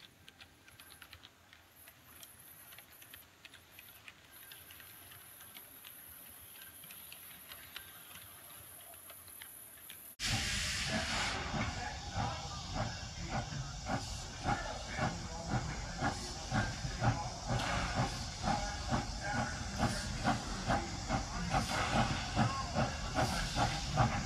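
Faint rapid ticking that slowly grows louder, then about ten seconds in a sudden switch to much louder steam locomotive sound: a steady hiss with rhythmic chuffing at about four beats a second.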